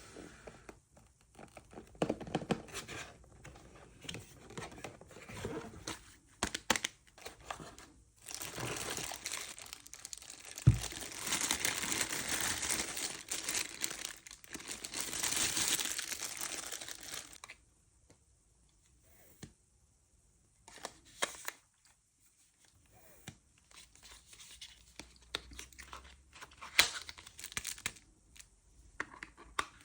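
Packaging of a new camera lens being handled and opened: crinkling and tearing that runs on for several seconds in the middle, with one dull thump, then quieter scattered clicks and taps.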